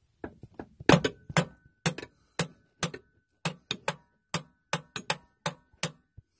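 Hammer tapping repeatedly on the starter motor of a Jeep Cherokee XJ, about fifteen sharp metallic knocks at a couple a second, with a faint ring between them. It is the old trick for jarring loose a sticking starter on a no-start; the owner thinks the starter has failed.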